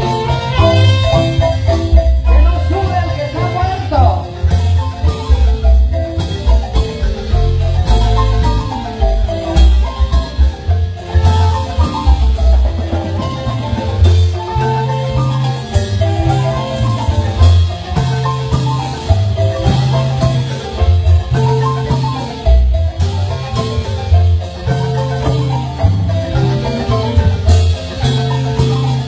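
Live marimba band playing dance music: rapid mallet notes over a moving bass line.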